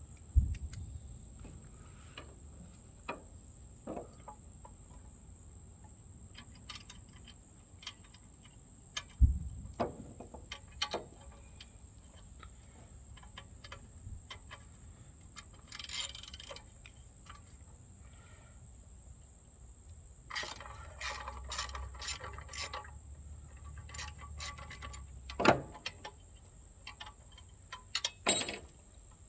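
Socket ratchet with an extension clicking in short runs as bolts are worked loose to take the engine off, among clinks and knocks of metal tools and parts. The loudest sounds are sharp knocks about half a second in, around nine seconds in and around twenty-five seconds in.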